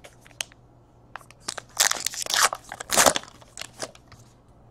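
Trading cards being handled and dropped onto stacks on a table: a run of short rustles and clicks of card stock against card stock, thickest about two seconds in and again at three seconds.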